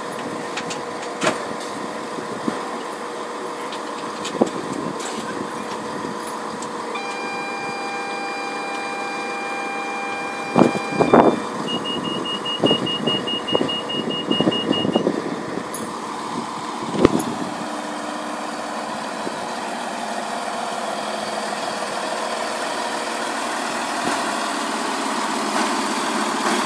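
Greater Anglia train's door warning sounding at the platform: a steady multi-pitched tone for about four seconds, then rapid beeping for about three seconds, with several thuds, over the steady hum of the standing train. The train's running noise grows louder near the end.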